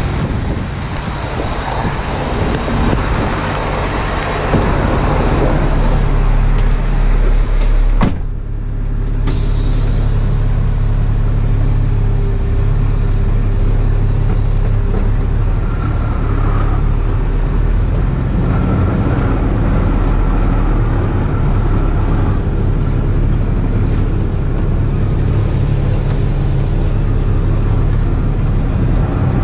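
Heavy rotator wrecker's diesel engine running steadily as the truck pulls forward, with a single sharp knock about eight seconds in.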